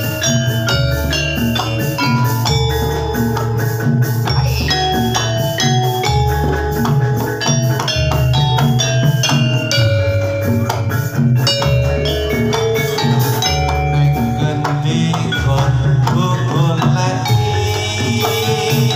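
Live Javanese jathilan accompaniment music: rapid mallet-struck metal notes over drums and a deep pulsing bass, with no singing.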